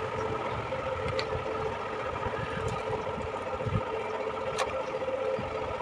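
A motor running steadily with a fixed hum, with a couple of faint sharp clicks.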